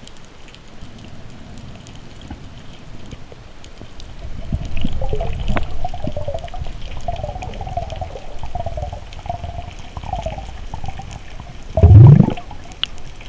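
Water gurgling and sloshing around the camera, rising about four seconds in, with a short loud rush of water about a second before the end.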